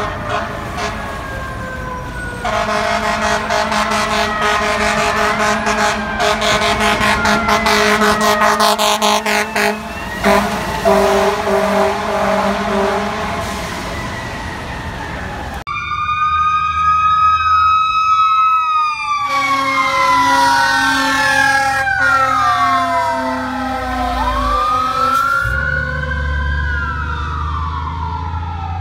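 Fire trucks responding with sirens: electronic sirens wailing and yelping, with long, steady blasts of air horn over them. The sound changes abruptly about halfway through to sweeping siren wails, and a low engine rumble comes in near the end.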